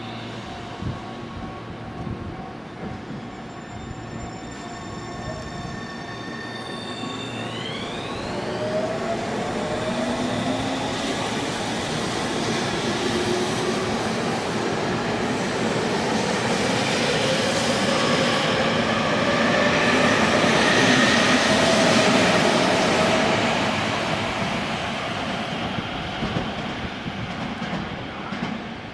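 Electric commuter train pulling away and speeding up, its traction motors whining in several tones that climb in pitch. Wheel and running noise builds to a loud peak about twenty seconds in, then fades as the train moves off.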